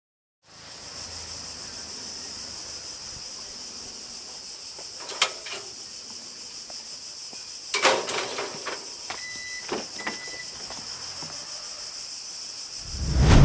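Steady high-pitched drone of summer cicadas, broken midway by a couple of sharp knocks like a gate or car door and two short high beeps. Near the end a loud low car engine rumble swells in.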